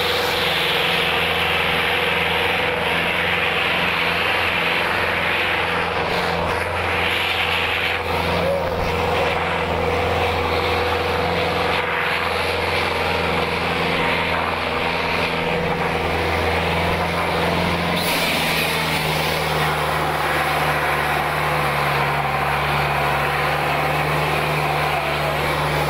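Turbocharged diesel engine of a Preet 6049 tractor running hard under heavy load, dragging two harrows through soil: a loud, steady drone whose note changes about eighteen seconds in.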